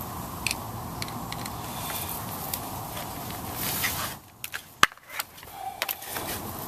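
Spring-loaded metal alligator clips of jumper leads being handled and clamped: scattered light clicks and rattles, with one sharp snap a little under five seconds in, over a steady background hiss.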